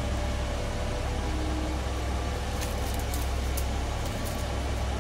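A steady low hum, with a few faint light clicks near the middle.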